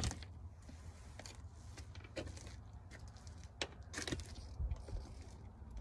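Spinning rod and reel being handled: scattered irregular clicks and small mechanical rattles, the sharpest right at the start, over a steady low rumble.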